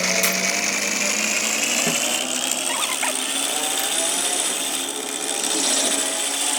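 A power tool running steadily in metalwork, with a high whine that slowly rises in pitch.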